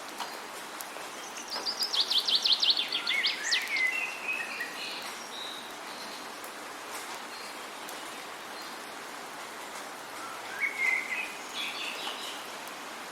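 A songbird singing two phrases over a steady hiss. The first, about two seconds in, is a fast trill of repeated high notes that slides downward and ends in a few lower notes. A shorter, quieter phrase comes near the end.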